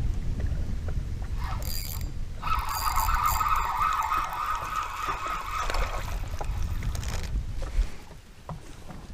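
A spinning fishing reel whirring steadily for about five seconds as it is cranked, starting a little over two seconds in. Wind rumbles on the microphone underneath and dies down near the end, and a brief hiss comes just before the reeling.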